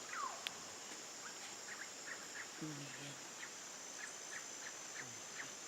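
Faint outdoor ambience: a steady high chirring of insects, with short chirps repeating every few tenths of a second and a brief falling whistle near the start. A faint low call sounds about halfway through.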